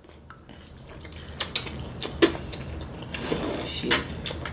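Noodles being slurped from bowls, with a few sharp clinks of metal forks against the bowls.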